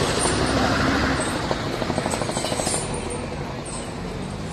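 Road traffic noise: vehicle engines running and passing close by, a dense steady noise that eases a little about three seconds in.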